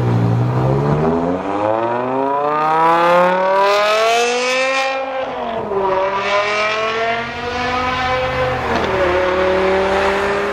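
A car engine accelerating hard. Its pitch climbs steadily, falls back about five seconds in and again near the end as it shifts up, and then climbs again.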